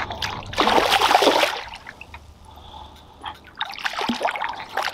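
A hooked carp splashing and thrashing at the water's surface as it is drawn to the landing net: a bout of splashing about half a second in, a lull, then more splashing from nearly four seconds in.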